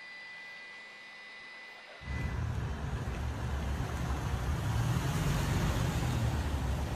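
A faint steady hiss with a thin high whine. About two seconds in it gives way suddenly to a much louder low rumble with hiss, which grows slowly: outdoor noise from footage of a large blaze.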